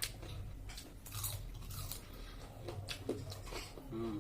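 Close-up chewing and biting of deep-fried chicken meat, with irregular crunchy crackles every half second or so over a low steady hum.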